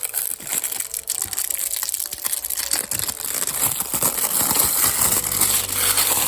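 Plastic packaging crinkling and crackling without a break as goods are handled and unwrapped.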